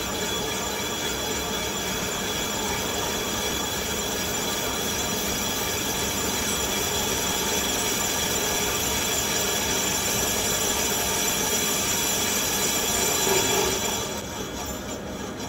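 Lathe turning the outside diameter of a large phosphor bronze bushing, a D-style carbide insert cutting with a steady high-pitched whine. The sound drops away about fourteen seconds in.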